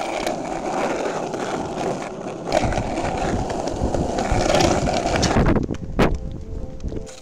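Skateboard wheels rolling over rough asphalt: a steady rolling noise that gets louder and heavier about two and a half seconds in, with one sharp knock about six seconds in, then dies away near the end.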